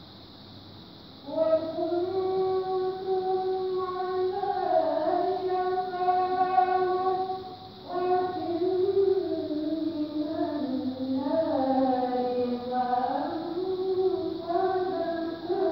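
A middle-aged woman's voice reciting Qur'an verses in melodic qira'ah style into a hand-held microphone, holding long ornamented notes. It starts about a second in, breaks briefly for breath about halfway, then goes on with the melody dipping lower before rising again.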